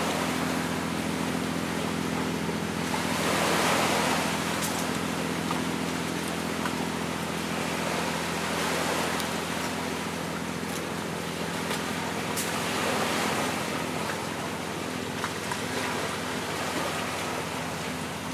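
Sea waves washing onto a rocky shore, swelling and easing every few seconds, over a steady low hum, with a few faint clicks.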